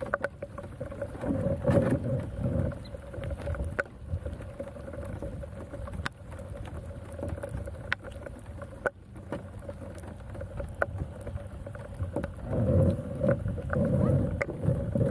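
Empty plastic gallon jugs being handled and knocked together while fishing line is tied onto one, giving scattered light clicks and knocks. A steady faint hum runs underneath, with bursts of low rumble about two seconds in and again near the end.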